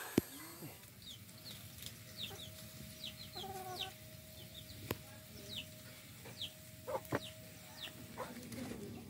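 Chickens clucking, with many short high falling chirps repeated every half second or so and a short call about three and a half seconds in. A couple of sharp clicks and a faint steady tone sit underneath.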